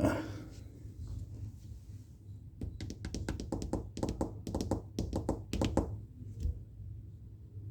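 A quick, uneven run of light taps and clicks, well over a dozen in about three seconds, from hard tools handled on a workbench during soldering work, over a faint low hum.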